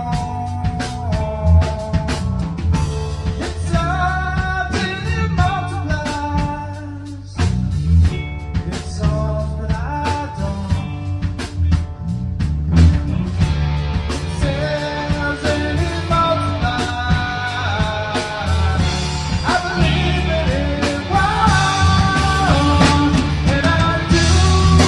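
Rock band playing a song live: drums, bass guitar, electric guitar and singing, with a short break in the music about seven seconds in.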